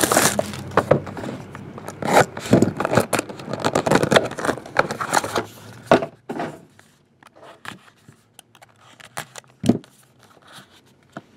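Clear plastic wrap being torn and peeled off a sealed cardboard trading-card box, crinkling and scraping for about six seconds. Then quieter handling of the cardboard inner box, with a few light clicks and one soft knock near the end.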